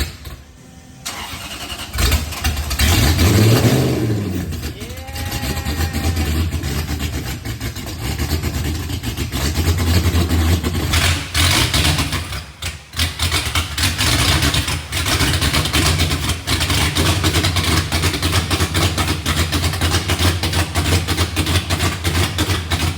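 V8 car engine running loud. It comes up suddenly about two seconds in, is blipped once so the revs rise and fall, then settles into a steady, lumpy low idle.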